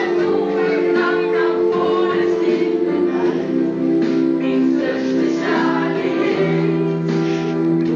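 A song sung by a group of boys over backing music with long held chords.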